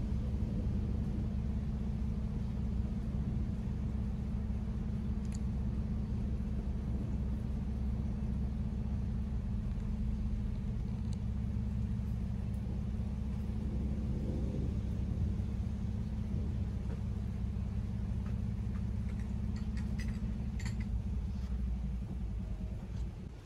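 Low, steady rumble of a thunderstorm, with a few faint ticks near the end.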